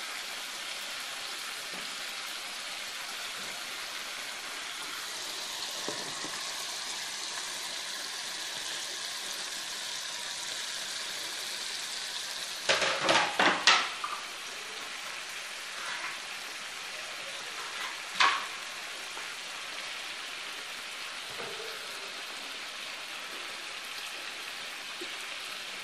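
Meat and sliced onion sizzling in oil in a clay tagine on a gas burner, a steady even hiss. A short clatter of sharp knocks comes about halfway through, and one more sharp knock a few seconds later.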